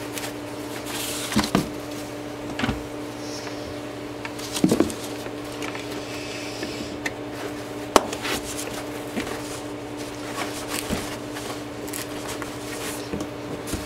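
Metal motorcycle landing-gear units being set into foam packing inserts in a cardboard box: scattered knocks and clunks, with a short rustle and scrape in the middle, over a steady low hum.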